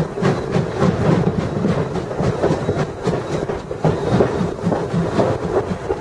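Steam locomotive B3 No.130 working at low speed, with a quick, steady rhythm of exhaust beats, about four or five a second, over the rumble of its wheels on the track.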